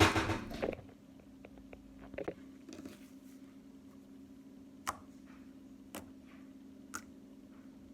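Slime being handled: a loud squishy burst at the start, then small sharp pops and clicks about once a second over a steady low hum.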